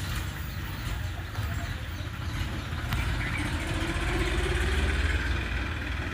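A steady, low engine rumble, like a motor idling.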